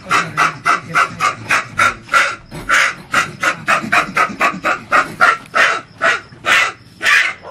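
Injured bonnet macaque giving rapid, harsh rasping distress calls, about four or five a second without a break, while it is held by the scruff and tail.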